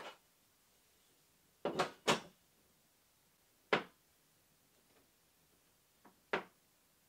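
Black metal wire basket knocking against wooden trim as it is held up and shifted into position: a handful of short, sharp knocks, several close together about two seconds in.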